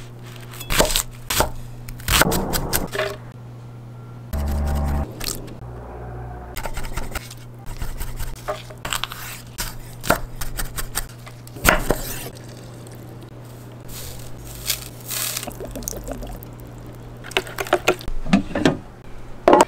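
Chef's knife chopping on a wooden cutting board: irregular sharp knocks and taps with some scraping, over a steady low hum. Near the end, a spoon stirring the wet, chunky chimichurri in a plastic container.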